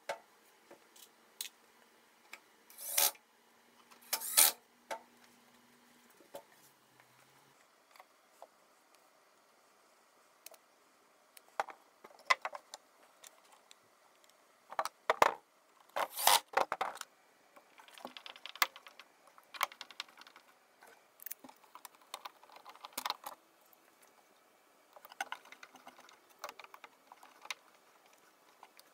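Scattered metallic clinks, clicks and short clatters of screws and metal drawer runners being handled and fitted into a wooden dresser carcass. There are a few louder clatters, then a run of light, quick ticks near the end.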